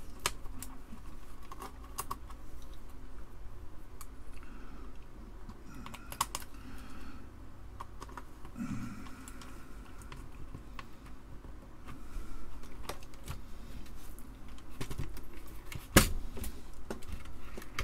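Scattered plastic clicks and taps of hands working on a computer keyboard while its ground wire is reattached, at uneven spacing rather than steady typing. One sharp knock comes near the end.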